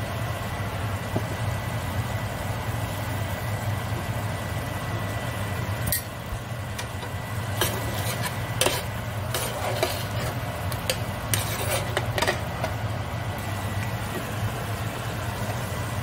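A metal spoon stirring tomato sauce in a square copper-coloured pan, with a run of scrapes and clinks against the pan from about six seconds in to about twelve seconds. The sauce sizzles faintly over a steady low hum.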